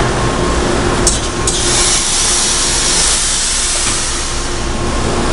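Steel coil processing line running: a steady industrial machine hum, with a loud hiss from about a second in until about four seconds in.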